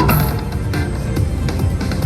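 Loud electronic music with a pulsing low end.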